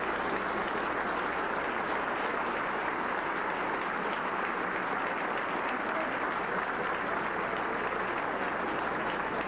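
A large audience applauding, a steady, even clatter of many hands clapping that holds at one level throughout.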